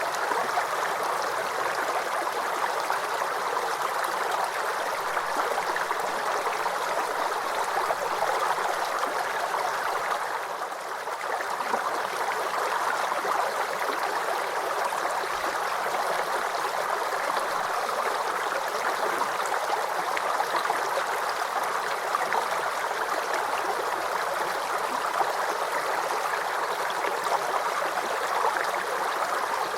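Small forest creek babbling and gurgling steadily over stones, briefly a little softer about ten seconds in.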